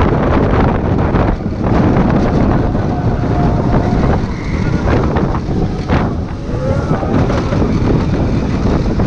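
Heavy wind buffeting the microphone and the rumble of a Manta flying roller coaster train speeding along its track, rising and falling in gusts, with a brief rider's yell about two-thirds of the way through.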